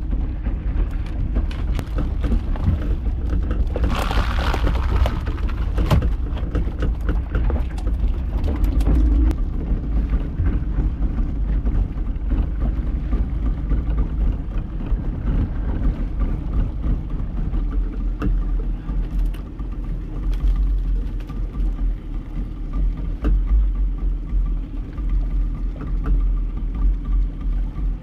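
Wind rumbling on the microphone over open sea, with water washing against a small fibreglass fishing boat, scattered knocks, and a brief louder rush of noise about four seconds in.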